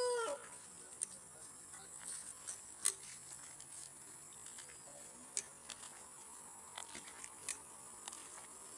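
A hen gives one short squawk falling in pitch right at the start. After it, scattered faint clicks and taps sound over a steady high hiss.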